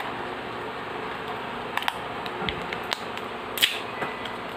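Scattered clicks and small cracks of a thin plastic mould being pried and peeled by hand off a cast hot-glue wheel, with one louder crack about three-quarters of the way through, over a steady hiss.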